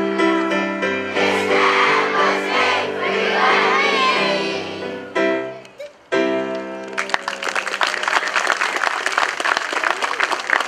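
A group of girls singing over an instrumental accompaniment of held low notes, ending on a sustained final chord about halfway through. Then the audience applauds.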